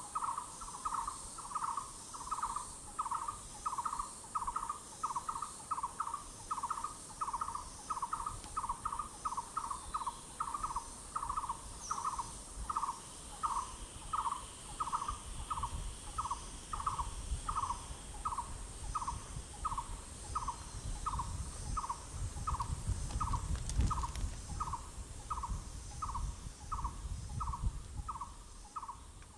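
A forest bird repeats one short, hollow note over and over at an even pace, about one and a half notes a second. A steady high insect whine runs beneath it, and a low rumble swells in the second half.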